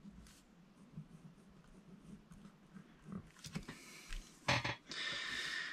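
Pen drawing lines on graph paper in a spiral notebook: faint scratches and small ticks. Near the end, a louder short hiss lasting about a second.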